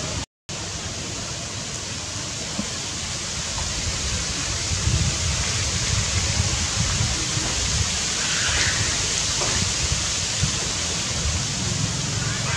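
Steady outdoor hiss with a gusting low rumble, like wind buffeting the microphone. The sound cuts out completely for a moment right at the start, and a faint short chirp comes in about two-thirds of the way through.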